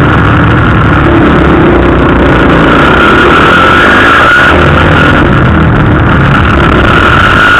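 Motocross dirt bike engine heard loud and close from a helmet camera, running hard with its pitch rising and falling as the throttle opens and closes.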